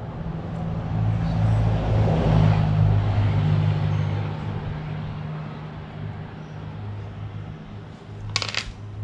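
A motor vehicle passing, its engine hum and road noise swelling over the first few seconds and then fading away. Near the end comes a short, sharp rasp as a cable tie is pulled through its ratchet.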